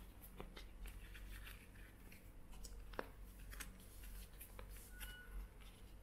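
Folded paper instruction leaflet being unfolded and handled: light, irregular crinkling and rustling of paper, with a sharper crackle about three seconds in.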